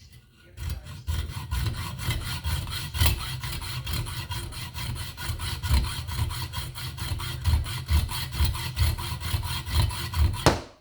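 Hacksaw cutting through the metal can of a used motorcycle oil filter with rapid back-and-forth strokes. The sawing starts about half a second in and stops just before the end.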